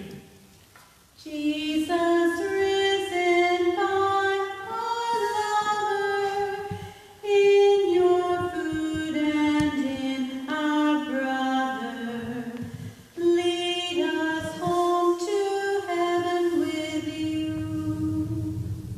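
Unaccompanied hymn singing in one slow melodic line, starting about a second in and sung in three phrases with short breaks between them.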